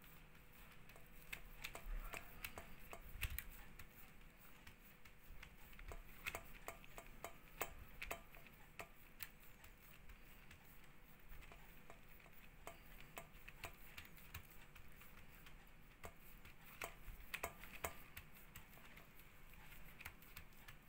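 Faint, scattered soft taps and clicks of fingers pressing and spreading sticky jackfruit-jaggery dough flat on a banana leaf laid on a steel plate, coming in small clusters.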